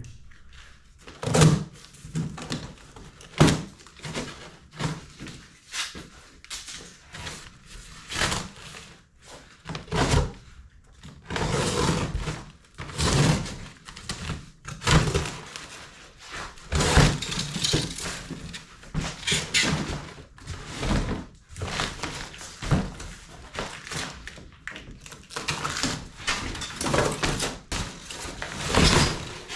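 A heavy cardboard shipping box being torn open and unpacked: irregular thuds and knocks as the log splitter's steel parts are pulled out and set down, mixed with stretches of cardboard rustling and ripping.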